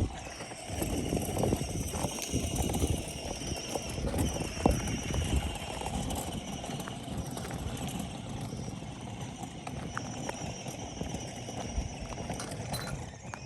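Footsteps crunching along a dirt trail, with a steady, wavering high-pitched buzz behind them.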